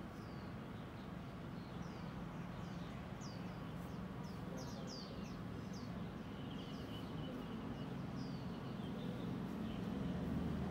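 Small birds chirping, many short high chirps that sweep downward, scattered irregularly, with a brief trill about seven seconds in. Under them a steady low rumble grows slightly louder near the end.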